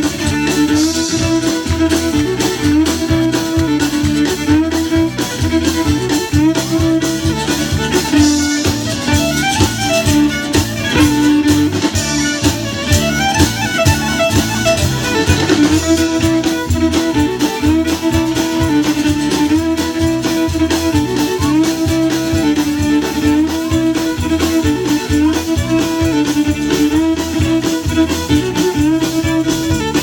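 Live band playing, with the fiddle out front over electric and acoustic guitars and a steady drum beat.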